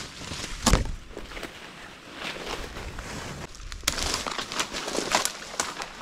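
Footsteps through dry leaf litter and twigs, with a series of short crackles and snaps and one heavier thump under a second in.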